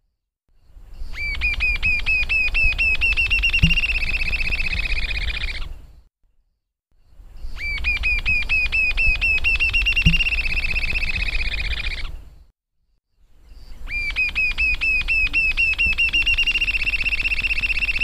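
Rufous-tailed jacamar song, given three times: each song is a run of high, thin notes that speed up into a steady trill lasting a few seconds, then breaks off for about a second before the next.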